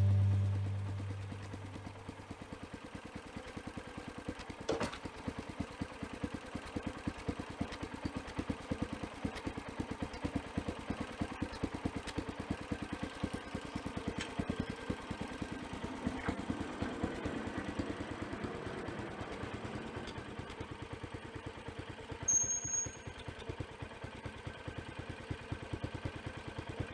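A small engine idling steadily, its firing heard as a rapid, even pulsing. A brief high-pitched squeak comes a little past three-quarters of the way through.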